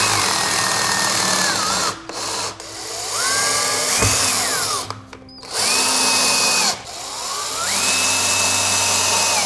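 Power drill driving screws into pilot holes in the wall: four short runs of the motor's whine, each a second or two long, its pitch sagging and climbing as the load changes.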